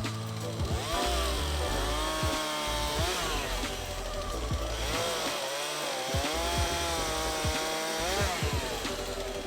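Stihl chainsaw cutting logs, its engine pitch sagging under load and rising again several times.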